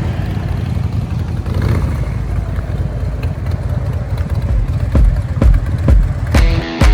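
Harley-Davidson Fat Bob's Twin Cam V-twin running loud and uneven through Vance & Hines Short Shots exhaust, cutting in suddenly. Rock music comes in near the end.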